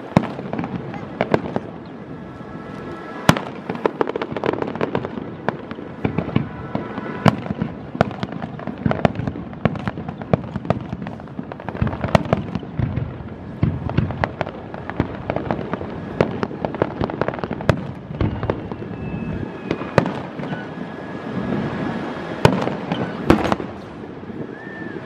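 Aerial firework shells bursting in an irregular, rapid series of sharp bangs and crackles, with the loudest reports about three seconds in, around the middle, and twice near the end.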